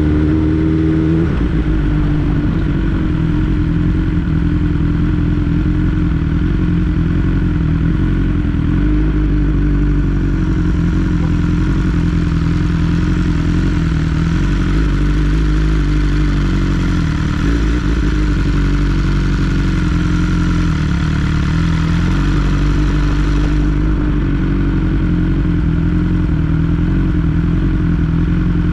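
2022 BMW S 1000 R's inline-four engine running at a steady cruise under a continuous hiss. The pitch rises slightly in the first second, then holds, and the upper part of the hiss drops away about 24 seconds in.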